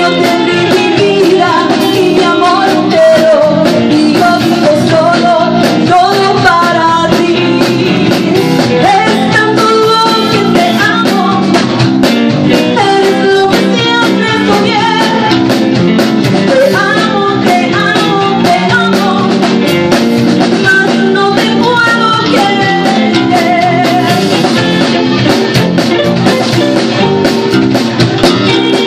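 Live band playing a song amplified through a PA: a woman singing lead over electric guitar and a drum kit.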